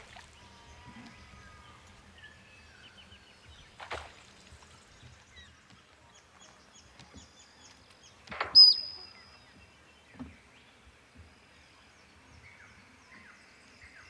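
Male musk duck's display: a loud sudden splash of kicked water about eight seconds in, followed at once by a short high whistle. A softer splash comes about four seconds in and a low thud about ten seconds in. Small birds chirp faintly in the background.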